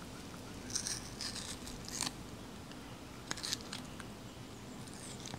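A purple-faced langur biting into a slice of watermelon: a run of short, crisp bites about a second in, then another quick cluster just after three seconds.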